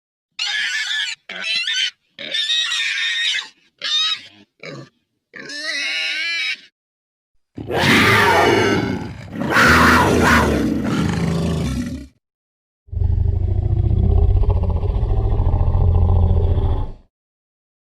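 Sound-designed Proceratosaurus calls, layered from modified animal recordings, played as separate clips with dead silence between them: first a string of short, high, wavering squeals and chirps, then a long loud roar, then a low rumbling growl lasting about four seconds.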